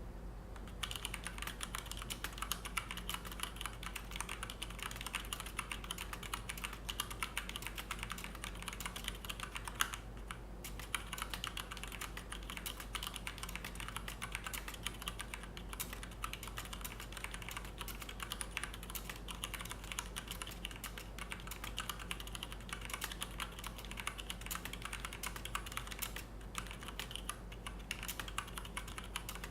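Fast, continuous typing on a Noppoo Choc Mini mechanical keyboard with Cherry MX Red linear switches, soft-landing dampening pads and blank mixed PBT and ABS keycaps: a rapid stream of keystrokes, pausing briefly about ten seconds in and twice near the end.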